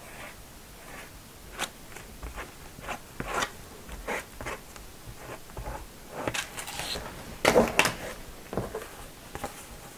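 Scattered scrapes and paper rustles: a plastic gift card spreading white glue over folded paper towel, then the glued paper being picked up and handled. The loudest handling sounds come about seven and a half seconds in.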